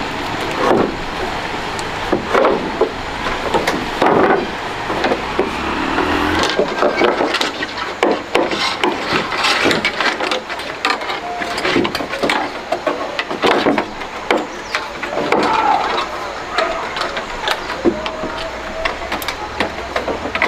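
Irregular knocks and clatter of hand construction work, many short sharp strikes coming unevenly throughout.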